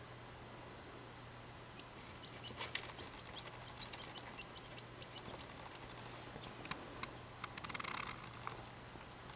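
Egg incubator humming steadily and quietly, with scattered small, sharp clicks and taps starting about two seconds in and a brief flurry of them near the end.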